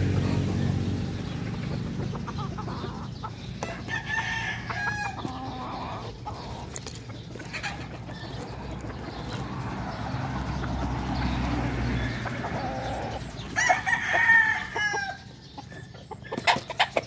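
Gamecock roosters crowing: a shorter call about four seconds in, then a loud crow around fourteen seconds in.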